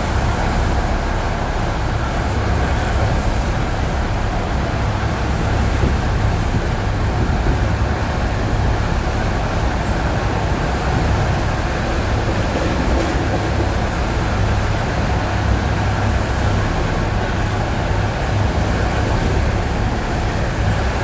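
Steady running noise of an ED9E electric multiple unit at speed on jointed track, heard from inside: a deep, even rumble of the wheels and carriage.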